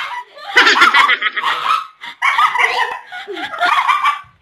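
Several women laughing loudly and hard, in two long bouts with a short break about two seconds in.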